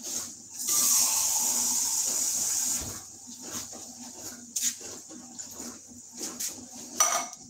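Kitchen tap running into a can for about two seconds as it is filled with water, followed by scattered light knocks and clinks from handling the can, with a sharper clink near the end.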